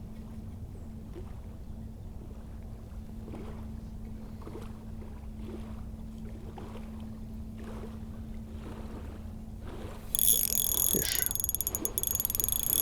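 A steady low hum with faint soft ticks, then about ten seconds in a fishing reel starts a fast, sharp clicking whir as a fish is hooked and fought.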